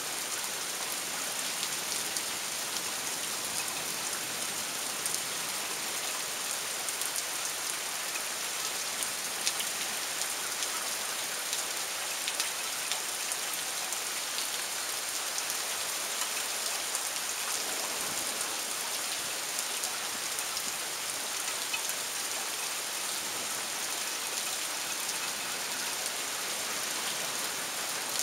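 Rain falling steadily: an even hiss with many small ticks of single drops.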